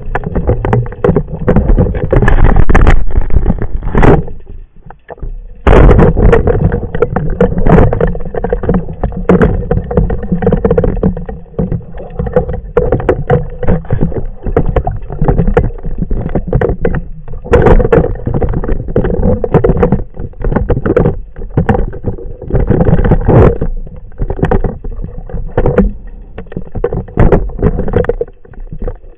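Muffled underwater noise of water moving against a waterproof camera housing while a spearfisher swims and handles his speargun, with frequent knocks and clicks from handling. It dies down briefly about four seconds in and comes back suddenly.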